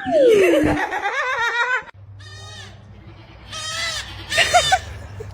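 Animal cries: a falling cry first, then after a cut several short quavering calls, each under half a second.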